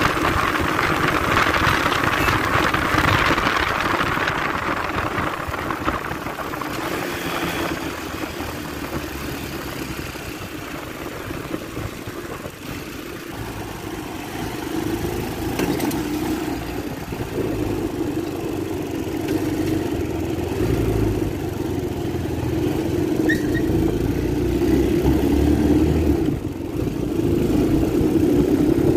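Engine of a 250cc Lida ATV running as it is ridden, heard from the seat, with wind and road noise strongest in the first few seconds. The engine eases off around the middle and picks up again toward the end.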